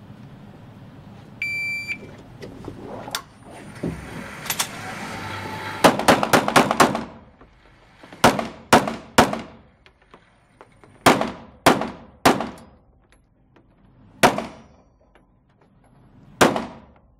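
A shot timer beeps once, then a handgun fires strings of shots indoors, each report trailing a short echo. There is a fast run of about six shots around six seconds in, then groups of two to four shots with pauses between them.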